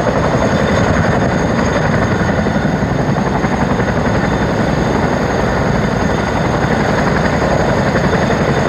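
Chinook tandem-rotor helicopter on the ground with its engines running and rotors turning before take-off: a steady, fast rotor chop over a high, even turbine whine.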